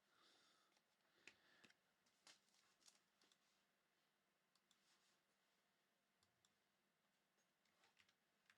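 Near silence, with a few faint, short clicks in the first three seconds and fainter ticks later: trading cards being handled during a box break.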